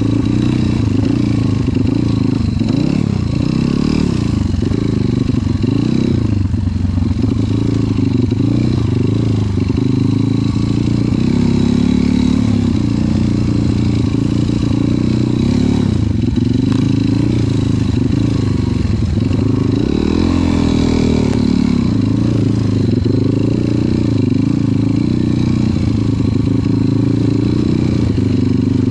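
Trail motorcycle engine running under load, revving up and down over and over as it is ridden over rough ground.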